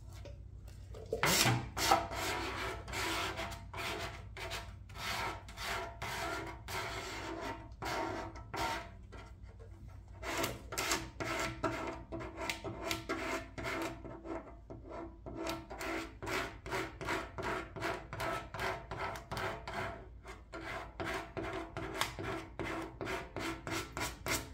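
Plastic card squeegee rubbing over a vinyl decal and its transfer tape on a truck tailgate: repeated firm strokes, about two a second, starting about a second in. This is the decal being worked down onto the panel to press out air bubbles.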